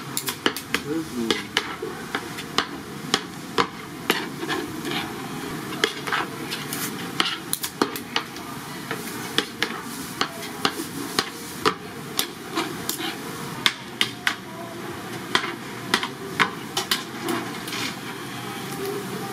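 Irregular sharp clacks of kitchen utensils striking a work surface, two or three a second, over the steady hiss of oil deep-frying handmade fish cakes.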